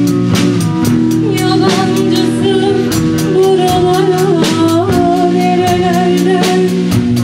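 A band playing: a drum kit keeps a steady beat over sustained low notes, and a singer comes in about a second in with a long, wavering melody line.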